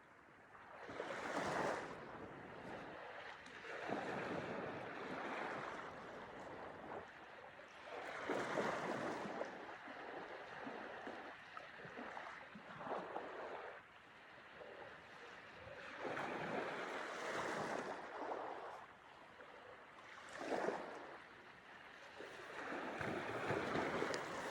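Small ocean waves washing onto the shore, the surf swelling and falling back every few seconds.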